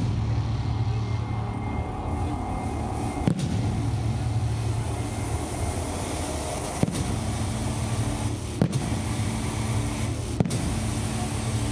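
Display fireworks at the start of a show: four single sharp bangs spaced one and a half to three and a half seconds apart, over a steady low rumble.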